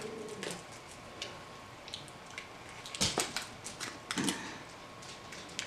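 Small plastic candy package being handled and picked at: scattered light plastic clicks and crinkles, with sharper clicks about three seconds in and again about a second later.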